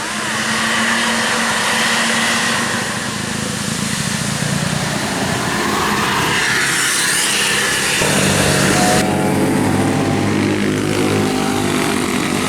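Tour bus diesel engine running amid road traffic noise, with a stronger engine hum setting in about eight seconds in.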